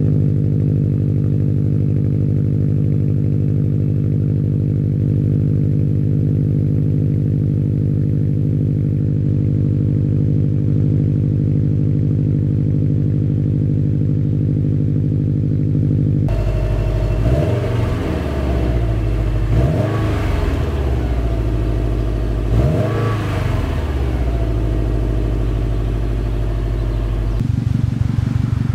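2015 Subaru WRX STI's turbocharged flat-four idling steadily on a cold start through a Tomei Expreme Ti titanium cat-back exhaust. Midway it switches to the stock exhaust, idling and then revved three times to about 3000 rpm, each rev rising and falling back to idle. Near the end it is idling again on the Tomei exhaust, with a quick pulsing beat.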